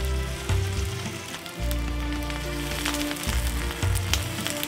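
Leaf-wrapped parcels sizzling on a hot flat pan, a fine steady crackle under background music with prominent low bass notes.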